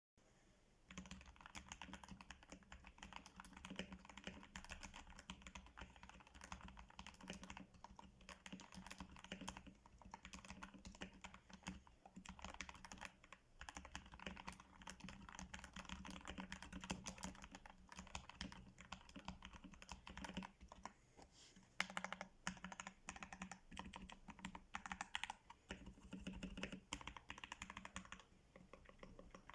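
Typing on a CIY Tester68 mechanical keyboard fitted with lubed Gateron Brown tactile switches: a steady stream of keystroke clacks, starting about a second in, with a few short pauses.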